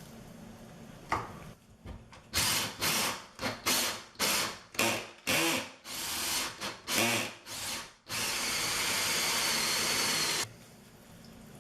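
Wiping a wet countertop with paper napkins in quick strokes, about two a second, followed by a steady hiss for about two and a half seconds that stops sharply.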